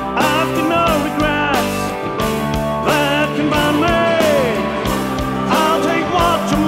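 Rock song with a steady drum beat and singing.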